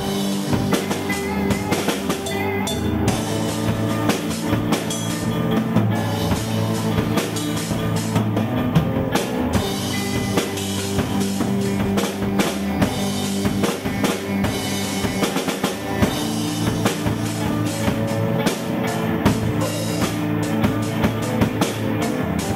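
A live instrumental rock jam on drum kit and electric guitar: the drums keep a steady beat under held guitar notes.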